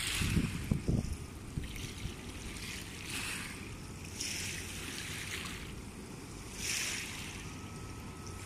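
Wind rumbling on the microphone, with small river waves splashing against the bank in soft washes every second or two.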